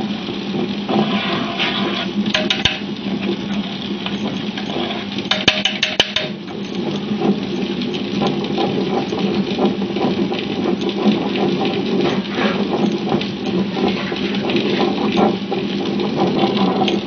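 Tabletop wet grinder running: a steady motor hum while its stone rollers turn in the spinning steel drum, grinding soaked urad dal into coarse batter. Twice, a few seconds in, a short rattling clatter.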